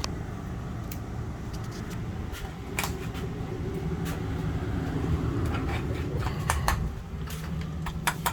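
Steady low hum of a travel trailer's air conditioner running, with a few light clicks and taps scattered through.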